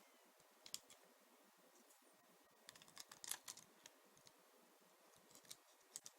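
MacBook keyboard keys being pressed: a few faint, scattered clicks, with a small cluster of them about three seconds in.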